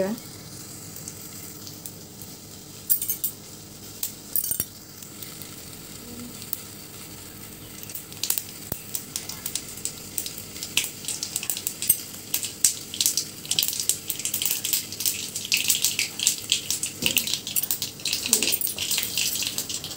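Mustard seeds crackling and popping in hot oil in a metal kadai: the tempering seeds spluttering as the oil comes to heat. A few scattered pops at first, then from about eight seconds in the pops come thick and fast and grow louder toward the end.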